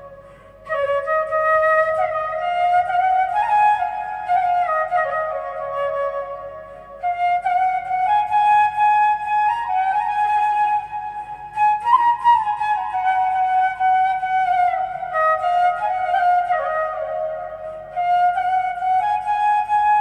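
Background music: a flute playing a melody in phrases, with short pauses between them.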